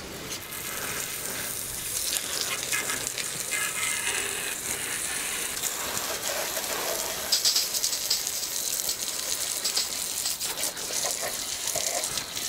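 Wind blowing across the microphone: a steady rushing noise that swells and dips in gusts.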